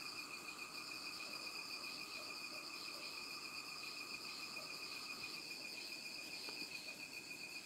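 Insects trilling steadily, several high trills layered at once; the lowest-pitched one stops a little past halfway.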